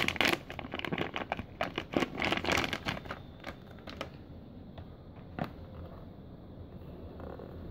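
Foil retort pouch crinkling and rustling as it is squeezed and shaken empty, dense for about the first three seconds, then dying away. A single sharp click follows about halfway through.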